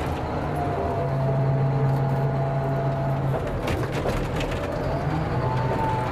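Diesel engine of a heavy earthmoving machine running under load, with a higher whine that rises near the end, and a few sharp cracking knocks about four seconds in.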